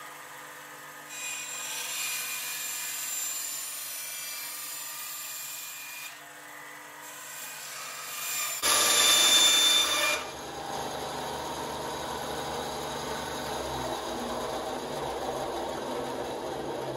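Bandsaw cutting the edge of a knife sheath's sheet material in short passes, a steady hiss as the blade goes through. About halfway there is a louder, harsher stretch of cutting lasting a second or two, followed by a lower running noise.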